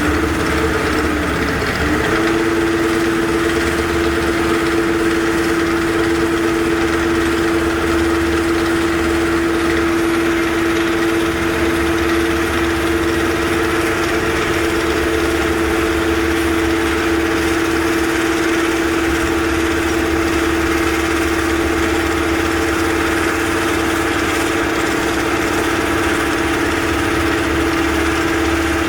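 Construction machine's engine running steadily with a constant hum; its pitch steps up slightly about two seconds in and then holds.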